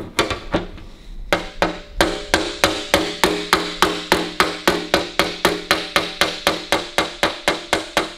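Body hammer tapping an aluminium bonnet panel against a steel dolly held behind it (hammer-on-dolly), knocking down a high spot in the metal. A couple of taps, then from about a second in a steady run of about four light taps a second, each ringing briefly.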